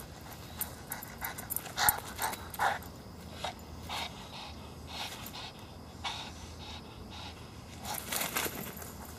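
Boston terrier panting hard in short, irregular huffs, the loudest about two seconds in, ending in a quick flurry of huffs and rustling in grass and dry leaves as it scrambles right beside the camera.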